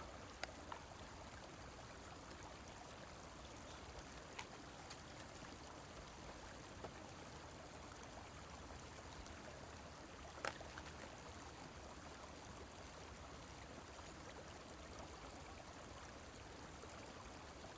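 Near silence: a faint, steady background hiss with a few light clicks, the clearest about ten seconds in.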